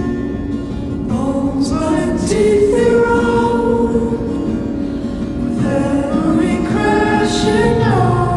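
Music: a song with several voices singing together.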